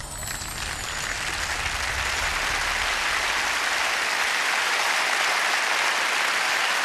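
Large hall audience applauding, the clapping swelling over the first two or three seconds and then holding steady.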